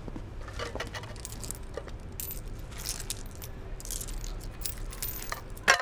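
Small objects being handled on pavement: scattered light clinks, scrapes and rustles over a low steady hum, with one sharper, louder knock just before the sound cuts off.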